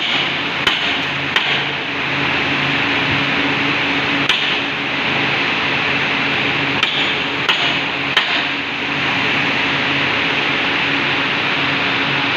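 An aluminium melting furnace running with a steady roar and a low hum, while six sharp knocks land at irregular intervals.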